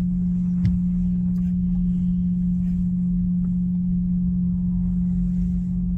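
2004 Ford F-250 idling with a loud, steady, foghorn-like hum at one pitch over the engine's low rumble. The owner puts the hum down to a dirty idle air control valve or throttle body.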